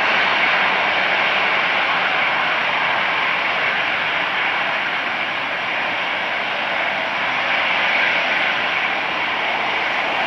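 Jet engines of an Airbus A340-313 airliner running with a steady, loud rushing noise that holds level throughout.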